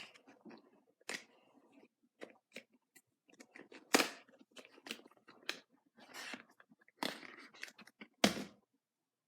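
A new plastic Rubik's cube being turned by hand: irregular clicks and short scrapes as its layers are twisted, with two louder snaps about four seconds in and near the end.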